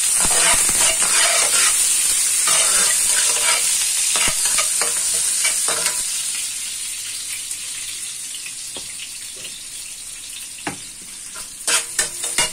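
Chopped garlic sizzling in hot oil in a wok, stirred with a metal spatula that scrapes against the pan. The sizzle slowly dies down, and a few sharp knocks come near the end.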